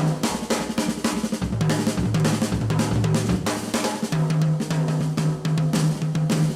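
Jazz drum kit playing a busy pattern of rapid snare and bass-drum strokes with rimshots, over long held low notes that shift pitch about four seconds in.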